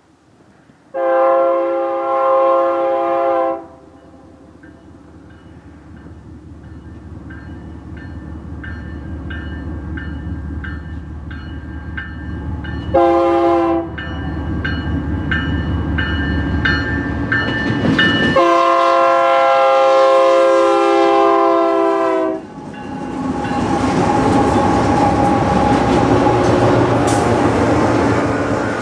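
Diesel freight locomotive's multi-chime air horn sounding a long blast, a short blast, then another long blast as the train approaches, over a building low engine rumble. Then the freight cars roll past close by, wheels clattering over the rail joints.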